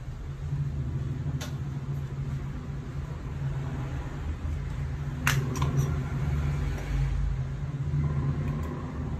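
Breaded snacks shallow-frying in a nonstick pan with a faint sizzle, under a steady low hum. Two sharp clicks come through, about one and a half seconds in and about five seconds in, the second followed by a few small ticks.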